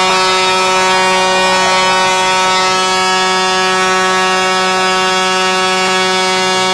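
Hockey arena goal horn sounding one long, steady blast, signalling a goal just scored.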